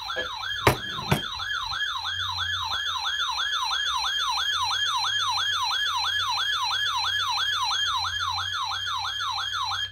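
Weather radio receiver sounding its warning alarm: a loud, rapid warbling siren tone, about three sweeps a second, that signals an incoming warning. Two sharp clicks are heard about a second in, and the alarm cuts off suddenly at the end.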